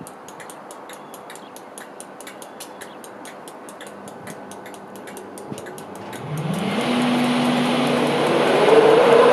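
Class 91 electric locomotive standing at the platform, its traction and cooling equipment powering up about six seconds in: a hum rises in pitch and then holds steady under a growing rush of fan noise. Before that, a fast even ticking of about three or four ticks a second.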